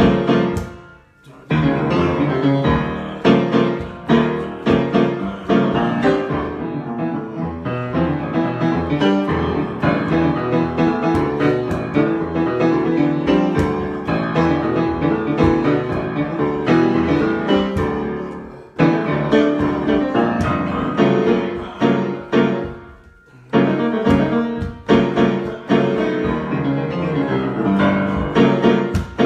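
Solo piano improvisation: a continuous flow of struck notes and chords. The playing lets the sound die away twice, about a second in and again near twenty-three seconds, before starting again.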